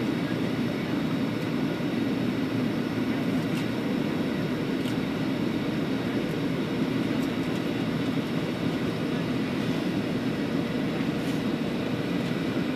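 Steady cabin noise of a Boeing 737 airliner in flight: the even, low rush of airflow and jet engines heard inside the cabin at a window seat.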